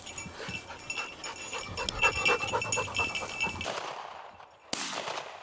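Labrador retriever panting hard close by, with scattered clicks and rustling of movement.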